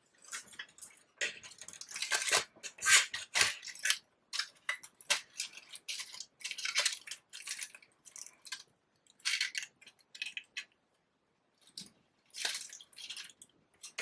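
Paper flowers and their stems rustling and crinkling as they are handled and pushed into a bouquet, in irregular crackly bursts with short pauses.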